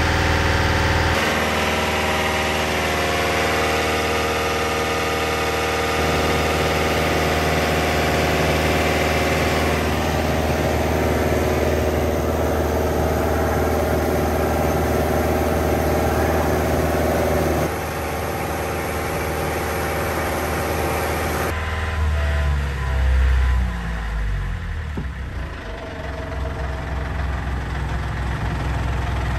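Yanmar 85 hp marine diesel idling steadily, heard up close in the engine compartment and then at the stern beside the sterndrive, where its exhaust discharges spraying water. About 22 seconds in the sound swells briefly and then sinks in pitch.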